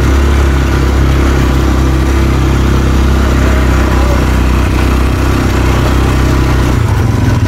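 ATV engine running steadily as the quad rides slowly over a rough, rocky dirt track, a loud, even low drone.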